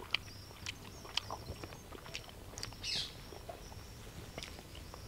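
Faint outdoor ambience: scattered light clicks and taps, with a few short, high bird chirps.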